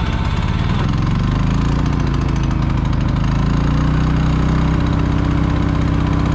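Champion Dual Fuel 3400 inverter generator running on propane just after its electric start, cold with the choke out. Its speed wavers and climbs over the first few seconds, then settles into a steady run.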